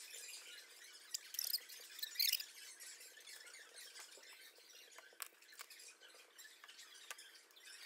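Faint handling of a plastic multi-colour pen: a few light clicks and short high squeaks, spread out over a near-quiet background.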